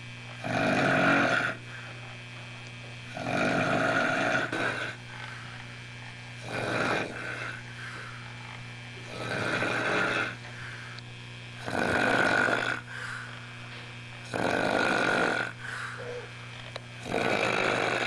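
Loud, pig-like snoring: seven snores, one every two and a half to three seconds, each about a second long, over a steady low hum.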